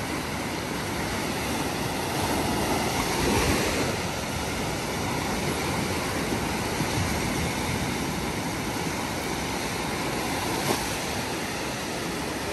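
Steady surf washing onto a beach, with wind on the microphone; the noise swells a few seconds in, and there is a single short tick near the end.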